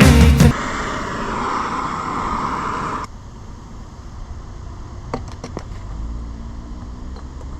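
Steady hissing from cutting through a steel plate on a snowplow mount, which cuts off about three seconds in. A few light metallic clicks follow.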